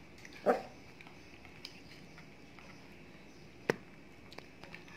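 A Shih Tzu gives one short bark about half a second in, demanding a share of the mango it is begging for. A single sharp click comes later, near the end.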